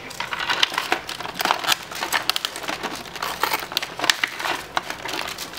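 Toy packaging crinkling and crackling in irregular bursts as it is handled and unwrapped by hand.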